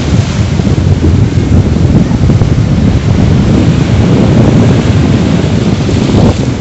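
Strong wind buffeting the microphone: a loud, unsteady low rumble with no break.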